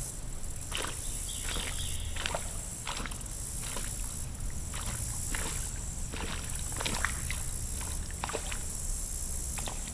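American alligator splashing and chomping on a chunk of meat at the water's surface, with sharp splashes and crunches every second or so. A steady low rumble and a high hiss run underneath.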